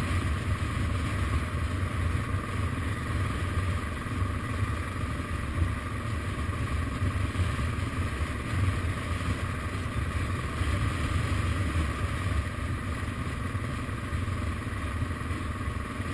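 Suzuki DR650's single-cylinder four-stroke engine running steadily as the motorcycle rides along, with no marked revving.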